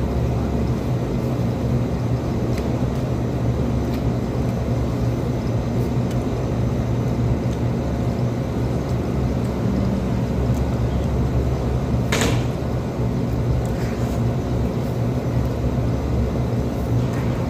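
Steady low machinery hum without let-up, with one brief noisy swish about twelve seconds in.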